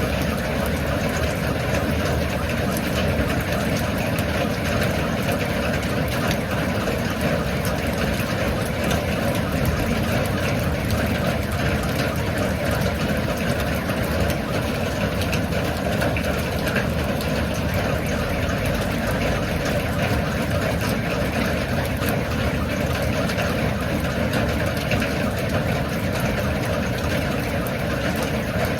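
Steady rain falling: an unbroken hiss with a dense scatter of small drop taps.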